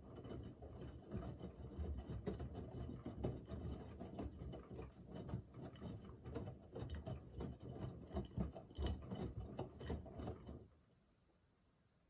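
Miele Navitronic W3985 washing machine's drum turning during the wash phase, with laundry tumbling and dropping in the water as a dense run of irregular knocks and clicks. The drum stops near the end, a pause in the wash rhythm before it turns again.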